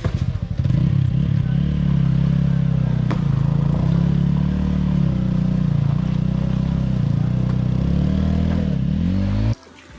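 TVS Apache RTR 200's single-cylinder engine catching with a few quick firing pulses, then held at high revs that rise and fall slightly as the bike struggles to pull out of deep mud. The pitch dips once near the end, and the sound cuts off suddenly just before the end.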